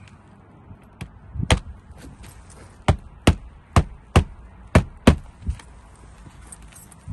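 Hammer blows driving nails: one sharp strike, then a quick, uneven run of six more.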